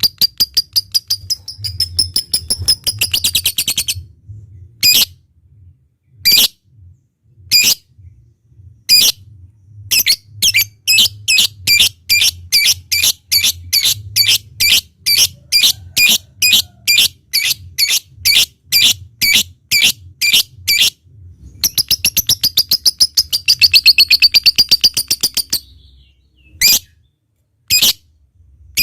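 Lovebird calling: a fast rattling trill (ngekek), then scattered sharp chips that settle into a steady string of about two chips a second (ngetik), and a second long trill near the end.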